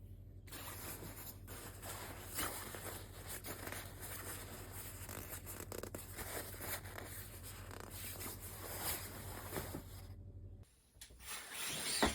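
Quilted jacket fabric rustling and swishing as the coat is handled. It cuts out briefly near the end.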